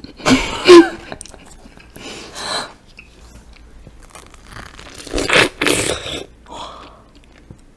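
Biting into a whole peach close to the microphone: one loud, crunchy bite about five seconds in, then chewing. There is a short burst of laughter just before.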